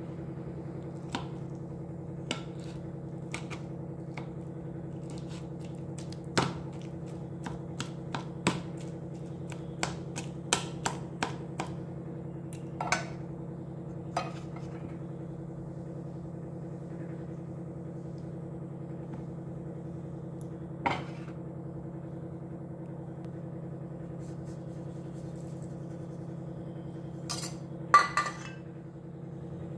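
A utensil clinking and knocking against a stainless steel bowl while boiled sweet potato is mashed, in scattered sharp clicks with a louder clatter near the end, over a steady low hum.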